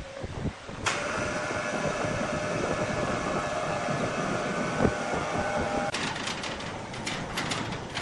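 Electric overhead hoist starting abruptly about a second in and running with a steady whine while lifting a heavy sawn beam, stopping near six seconds. A run of rattling clicks follows.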